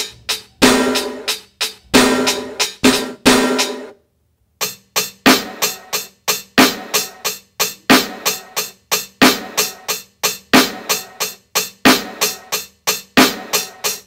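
Drum-kit music stingers. The first is a run of hard snare and bass drum hits that stops about four seconds in. After a short gap, a second stinger starts: a steady drum beat of about three hits a second.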